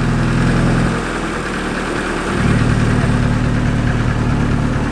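Turbocharged Honda D-series four-cylinder engine idling steadily, a little quieter for a second or so after about one second in.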